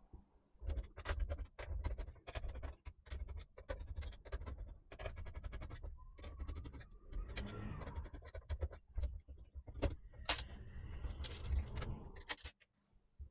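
Hands working on desktop PC hardware: a busy run of small clicks, taps and scrapes from parts being handled, over a faint steady low hum.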